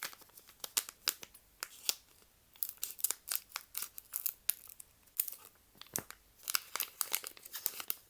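A trading-card booster pack being cut open with scissors and its wrapper crinkled, in several bursts of sharp crackling with short pauses between.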